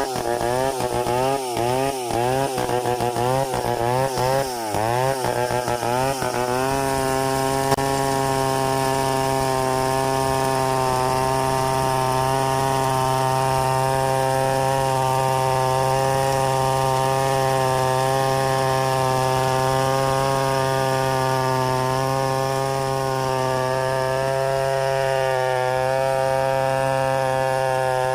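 Two-stroke chainsaw running. For the first six seconds or so its pitch rises and falls over and over, about every two-thirds of a second, then it settles and runs at a steady high speed.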